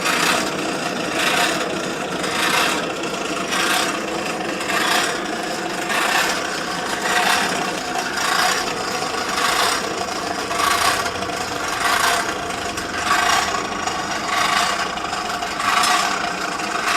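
Hand-worked forge air pump feeding air through a pipe into a charcoal fire, in a steady rasping rhythm of about one stroke a second, as the coals are brought up to heat.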